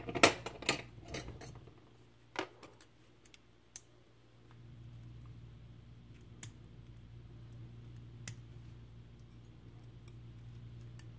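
Small metal lock parts clicking and tapping as a Medeco biaxial lock cylinder is taken apart by hand: a quick run of clicks in the first second and a half, then single clicks every second or two.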